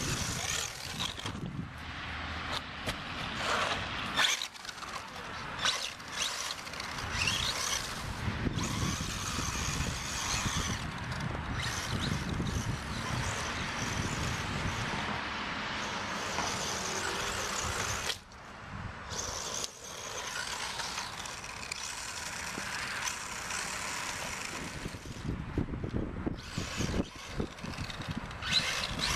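Thunder Tiger Sparrowhawk XB RC buggy's brushless motor whining up and down with the throttle, with its bald tyres spinning and scrabbling over dry leaves and dirt.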